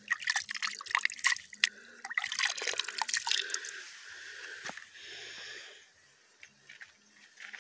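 A hand splashing and dripping in the shallow, clear water of a spring pool. The splashes come thick and fast for the first three seconds or so, then thin out to a few faint drips.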